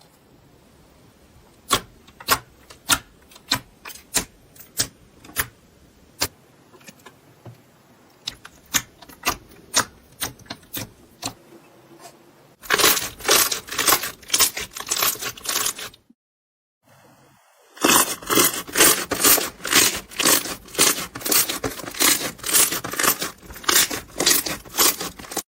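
Crunchy slime being pressed and worked by hand, giving sharp crackling pops: at first separate pops about two a second, then dense continuous crackling, broken by a short silence about two-thirds of the way through.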